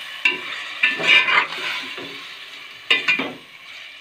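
Metal slotted spoon scraping and turning minced meat in an aluminium pot, in a few separate strokes, over a light sizzle of frying: the raw qeema is being browned in oil and masala.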